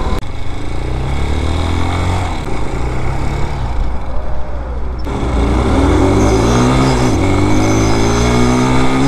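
Vitacci Raven BSR250's 229cc air-cooled OHV single-cylinder engine accelerating on the road. The pitch climbs, drops at each upshift and climbs again, about three times.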